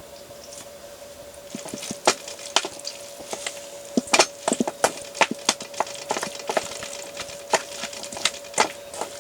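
Wood crackling and snapping in irregular sharp cracks, starting about a second and a half in, over a steady faint hum.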